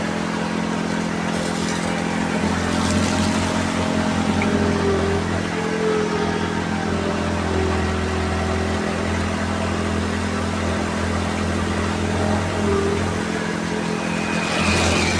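A heavy machine's engine running at a steady speed, with a short hiss near the end.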